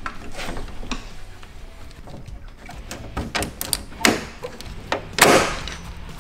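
Plastic kidney grilles being pressed and snapped into the front of a BMW E46, a series of sharp plastic clicks and knocks, the two loudest about four and five seconds in.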